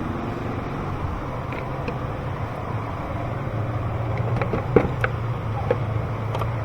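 A steady low background hum, with several sharp clicks and knocks in the second half as engine parts are handled and set back in place.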